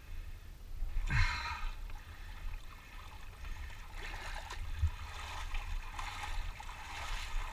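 Muddy pool water sloshing and splashing around a person wading chest deep and pushing a floating backpack along. A louder splash comes about a second in, and steady swishing from about four seconds in.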